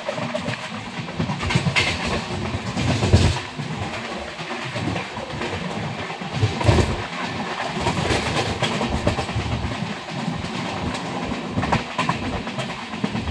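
Passenger express train running at speed, heard from an open coach door: a steady rush of wheel and rail noise, with sharp clacks of the wheels over rail joints every few seconds, loudest about three and seven seconds in.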